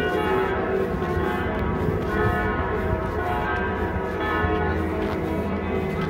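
Church bells pealing continuously, many strikes overlapping so that their tones hang together in a steady ringing wash.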